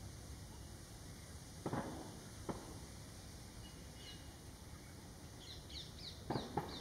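Faint outdoor ambience with a couple of soft taps about two seconds in. Near the end a small bird gives a quick run of short, falling high chirps, about five a second.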